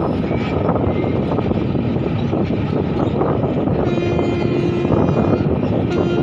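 Electric passenger train running, a steady rumble of wheels on rails heard from on board through an open door or window. About four seconds in the train's horn sounds as one steady tone for over a second, then again briefly near the end.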